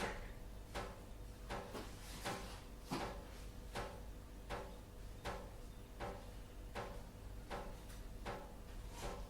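Water drops falling one at a time in a steady rhythm, about one drip every three-quarters of a second, each a short plink with a brief ring.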